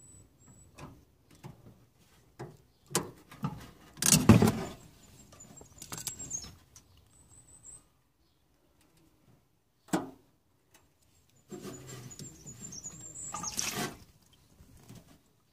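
Knocks and clatter of hands working the sump hose off a washing machine's drain pump, the loudest about four seconds in, then leftover water gushing out of the hose onto the floor for about two seconds near the end.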